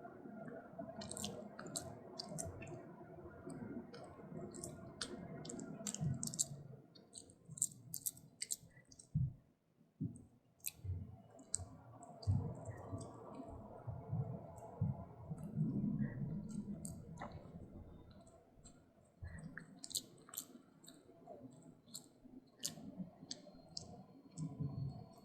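A puppy chewing a crunchy Pepero-style stick treat for dogs: irregular crisp crunching clicks over softer, wet chewing and mouth sounds.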